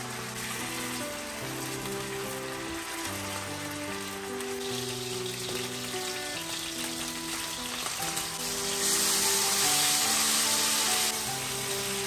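Diced meat sizzling in hot oil in a nonstick frying pan on a gas hob. The sizzle grows louder about halfway through and is loudest for about two seconds near the end, where it drops off sharply. Soft background music with held notes plays throughout.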